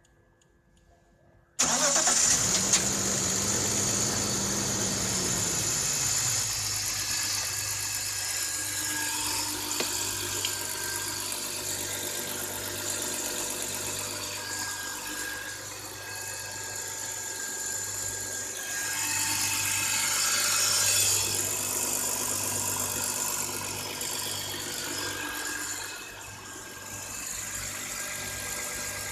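BMW E39's M54 inline-six starts from cold about a second and a half in. It runs at a higher fast idle that drops to a steady idle at about six seconds, with the cold-start knocking or rattling whose cause the owner does not know.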